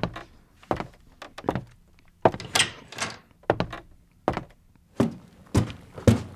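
Sound effects of a radio drama: a run of separate thunks and knocks, door sounds among them. There is roughly one every half second, with two longer swishing noises about two and a half and three seconds in.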